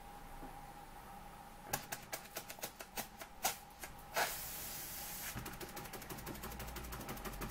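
Junior Engineer SE-100 model beam steam engine starting up on steam: a few irregular clicks as the flywheel is flicked over by hand, a burst of steam hiss about four seconds in, then rapid, even ticking as the engine runs on its own.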